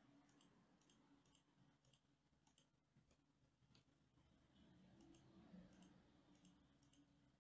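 Near silence: room tone with a few faint computer mouse clicks scattered through it.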